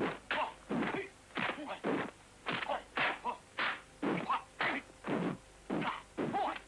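Kung fu fight soundtrack: a rapid string of short shouts and grunts from the fighters, about two a second, as they trade blows.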